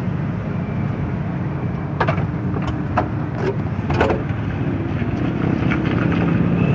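Steady low rumble of street traffic, with a handful of sharp clinks of metal utensils against steel pots between about two and four seconds in.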